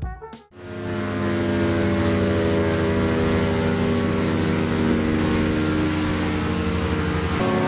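A large engine or motor running steadily with a low, even drone. Its pitch shifts to a new speed near the end.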